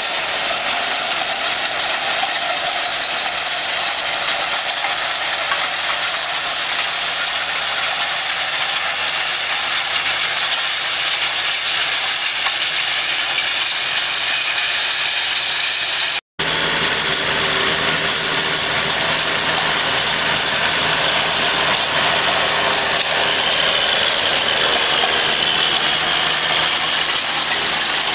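Tractor engine running under load as it pulls a 17-shank chisel plough through dry, stony soil, over a steady rushing hiss of churned soil and stones and the rattle of the implement. The sound breaks off for an instant just past halfway.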